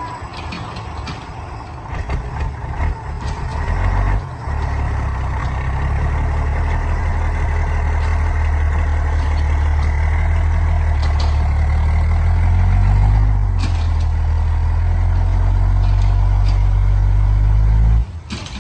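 Heavy diesel engine running loud and steady under load, with clanks early on, rising in pitch about thirteen seconds in, then cutting off suddenly near the end.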